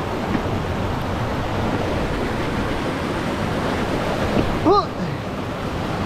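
Steady rush of stream water pouring over rocks through a small cascade, with a short voiced exclamation about five seconds in.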